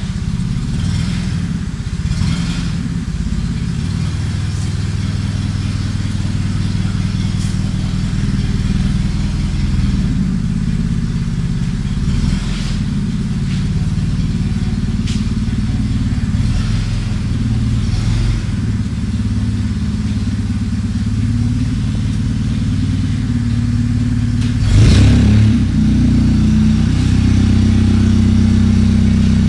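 Yale 4000 lb forklift's engine running steadily, with occasional light clicks and knocks. About 25 seconds in there is a brief louder surge, after which the engine runs slightly louder.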